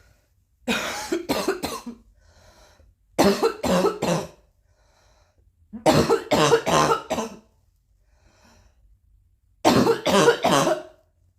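Four fits of coughing, each three or four hard coughs in quick succession, with faint breaths in the pauses between fits.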